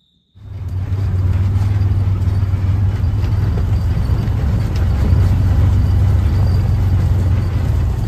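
A UTV riding along: its engine runs steadily under wind and ground noise, a loud, deep rumble that cuts in suddenly a moment in.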